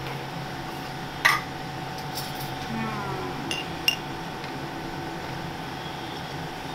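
A metal spoon clinking against kitchen pots and containers as salt is scooped into a pressure cooker: one sharp knock about a second in, then two short ringing clinks a little before the four-second mark, over a steady low hum.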